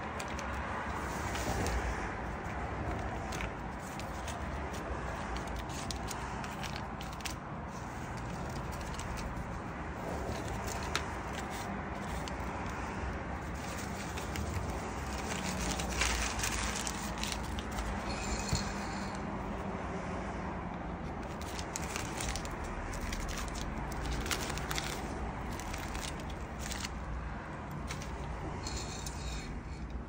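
Handling sounds from a drawing desk: paper rustling and crinkling, with scattered small clicks and scrapes as art supplies are picked up and moved, over a steady low hum.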